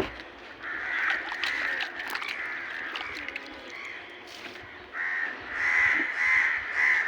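Birds calling over and over, a run of calls about a second in and a louder, more regular run from about five seconds on.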